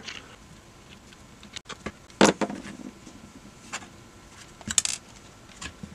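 Handling noise from the opened plastic multimeter case being moved on a workbench: a few scattered light clicks and knocks, the sharpest about two seconds in and a quick cluster near the end.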